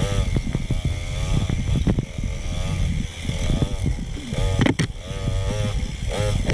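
Dirt bike engine revving up and down over and over as the bike is ridden along a rough single-track trail, with knocks and clatter from the bike over the ground and a sharp knock about two-thirds of the way in.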